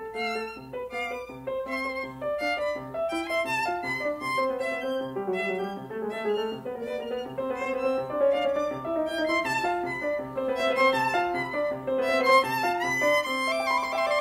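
Instrumental background music: a melody over a low note that pulses steadily about twice a second.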